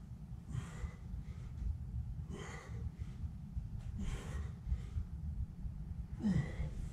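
A man breathing hard through push-ups: a sharp exhale about every two seconds, the last with a brief falling grunt, over a steady low rumble.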